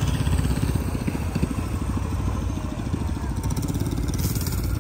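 A vehicle engine idling, with a steady rapid low pulse.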